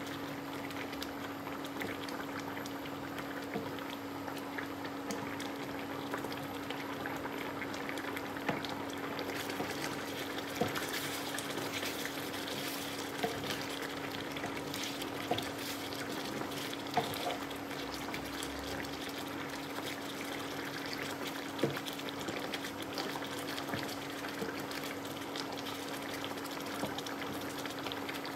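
Rendang sauce simmering and bubbling in a nonstick frying pan while a wooden spoon stirs it, with scattered light clicks of the spoon against the pan. A steady low hum runs underneath.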